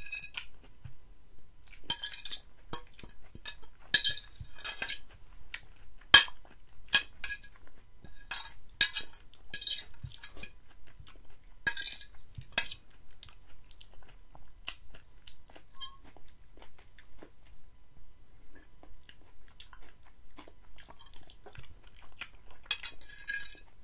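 A metal fork scrapes and clinks against a ribbed glass plate many times while the last of an avocado salad is scooped up. Chewing comes between the clinks, and the loudest clinks are about 4 and 6 seconds in.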